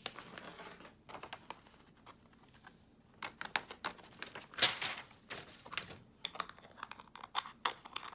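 Sheet of paper rustling as it is picked up and moved over a cutting mat, the longest rustle about halfway through, with many small clicks and taps of a small plastic jar and lid being handled.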